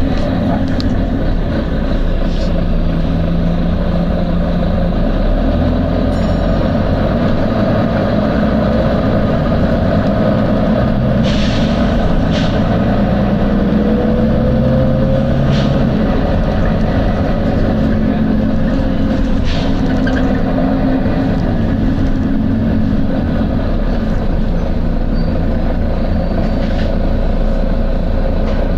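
Volvo B9TL double-decker bus running, its six-cylinder diesel engine and drivetrain droning steadily with shifts in pitch as it drives. A few short hisses from its air system come in the middle stretch.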